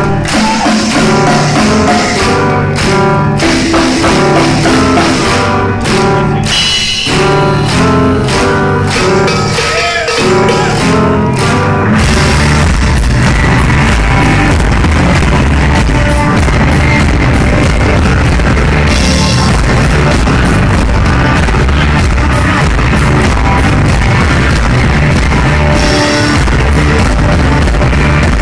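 Live rock band playing loud, heard through a concert recording with poor sound. The first part carries clear stepped riff notes; about twelve seconds in, the music changes to a denser, heavier passage with a strong low end.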